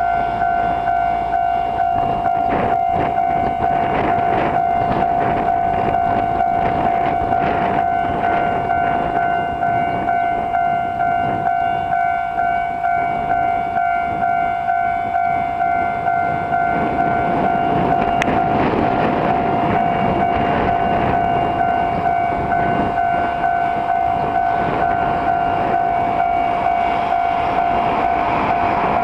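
Railway level crossing alarm ringing over and over in an even rhythm while a Nagano Electric Railway train runs over the crossing, its wheels rumbling and clattering on the rails. The train noise swells from about halfway through.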